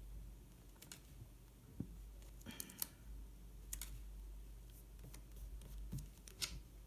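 Scattered light clicks and taps of paper and planner pieces being handled, about eight over a few seconds, over a faint low hum.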